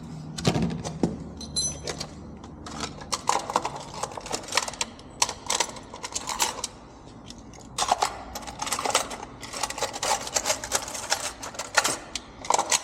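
Small metal tools and parts being handled and sorted, with irregular clicks and rattles that get busier in the second half.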